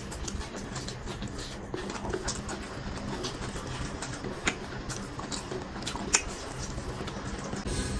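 Close-miked eating sounds: a man chewing a mouthful of chicken biryani with wet mouth clicks and lip smacks, and his fingers squishing and scooping the rice. Two sharper clicks stand out, one a little past halfway and one about three-quarters through.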